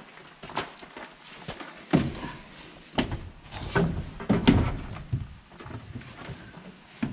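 Folding camping chair being handled and set in place: clacks and knocks of its metal frame and fabric rustling, with several louder thumps in the middle.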